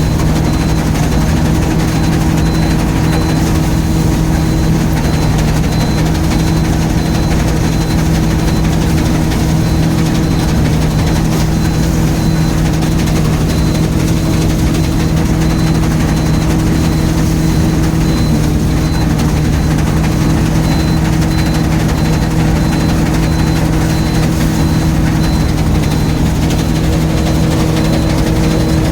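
Combine harvester running steadily while harvesting soybeans: a loud, even engine drone that holds one pitch.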